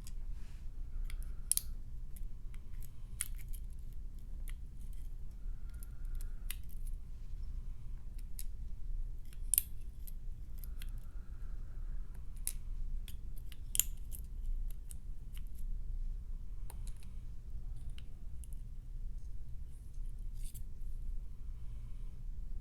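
Small metal parts of a disassembled Mul-T-Lock MT5+ lock cylinder being worked out of the plug and housing as the drivers and springs are removed: scattered light metallic clicks and ticks, a few sharper than the rest, over a steady low hum.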